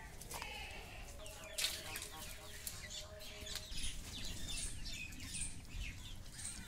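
Small birds chirping repeatedly in the background, many short quick calls, with a single sharp knock about one and a half seconds in.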